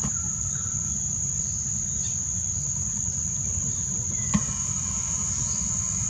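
Insects chirring in one continuous, steady high-pitched drone, with a low rumble underneath and a single soft click about four seconds in.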